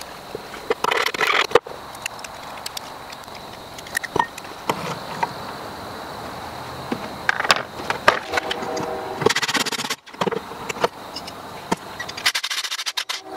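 Scattered metallic clicks and clinks with a few short scraping rustles: small steel hardware, a screw and nuts, being handled and fitted through a freshly drilled hole in sheet steel.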